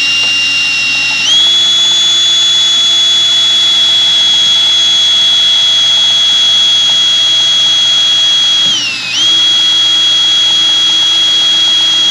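Cordless drill running under load as it bores a rivet hole through a wind diffuser and LED light bar housing: a steady high whine that steps up in pitch about a second in and briefly sags as the bit bites, about three-quarters of the way through, before picking back up.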